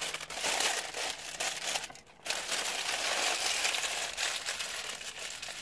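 Noisy slurping through a straw from the bottom of a nearly empty soda cup. It comes as two long sucks, with a short break about two seconds in.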